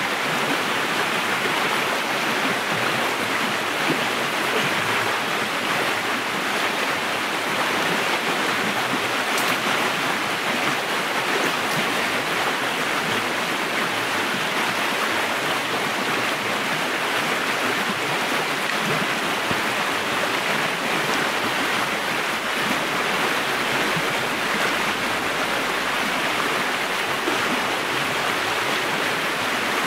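A river flowing steadily, an even rush of running water.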